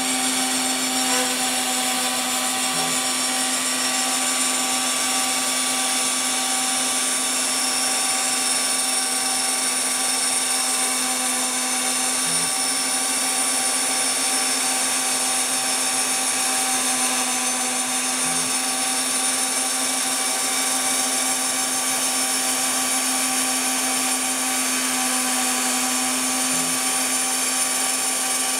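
Router spindle of a homemade CNC mill running steadily while cutting a fibreglass sheet, a constant hum and hiss that stays even throughout.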